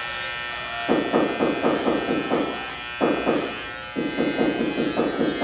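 Cordless hair trimmer buzzing steadily, with three stretches of louder, rougher buzzing as its blade works along the neck and beard line.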